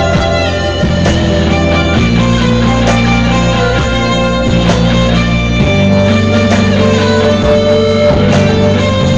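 Rock music with guitar, the chords changing every two seconds or so.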